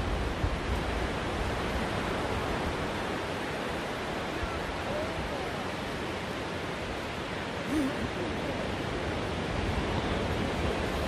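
Surf breaking and washing up a flat sandy beach: a steady wash of waves.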